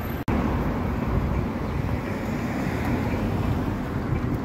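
Steady road traffic noise from cars driving past on a busy city street, with a brief dropout just after the start.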